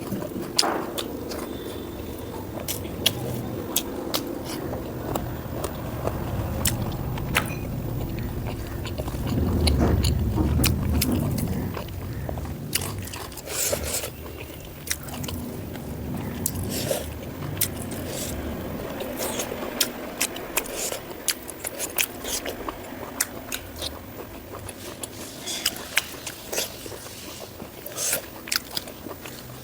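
A person chewing and biting mouthfuls of pork fat and rice close to the microphone: wet smacking and crunchy clicks that come irregularly. A low rumble swells and fades about a third of the way through.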